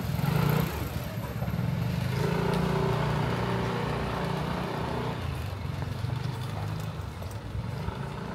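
A motor vehicle's engine running close by with a steady low hum, loudest in the middle and easing off after about five seconds as it moves away.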